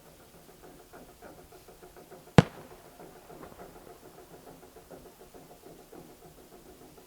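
Taiko drums beating faintly and steadily, and about two and a half seconds in a single sharp, loud bang of a firework shell bursting, with a short echo after it.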